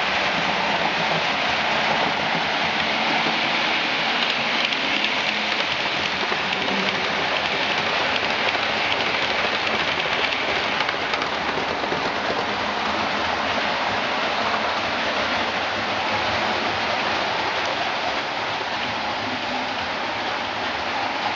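Steady rolling hiss and whirr of model trains running on the layout's track, wheels on rails and small motors, with no pauses.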